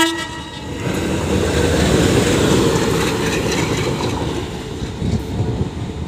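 WDG3A ALCO diesel locomotive running light at full speed past the listener: a horn blast cuts off at the very start, then engine and wheel-on-rail noise swells to a peak about two seconds in and fades as it goes away, with a few sharp clicks from the wheels over the rails.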